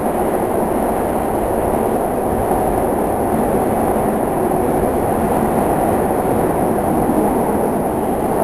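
Steady rumbling noise of a SEPTA Market-Frankford Line M4 subway car (Adtranz-built) running at speed through a tunnel, heard from inside the car.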